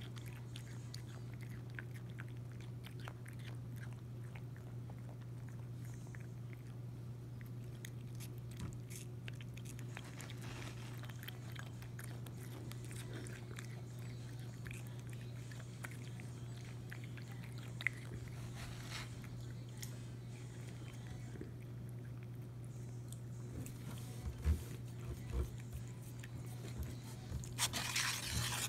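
Siamese cat biting and chewing pieces of watermelon: soft, scattered, wet little clicks over a steady low hum, with louder knocks and rustling near the end.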